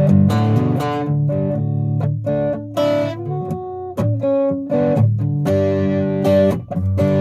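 Guitar strumming chords in an instrumental break between sung lines of a song, the chords struck again and again, with a few held single notes near the middle.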